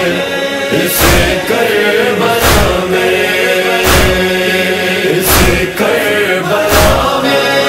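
Nauha (Shia Muharram lament) backing: a chorus of voices holding a sustained chant over a deep, regular beat about every one and a half seconds.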